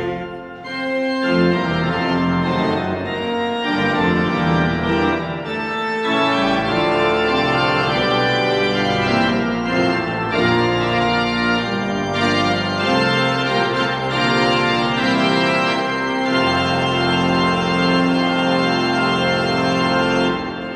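Large church pipe organ playing slow, held full chords that change every second or two. At the very start a choir's last chord breaks off, and the organ enters about a second later. The organ stops near the end and dies away in the church's reverberation.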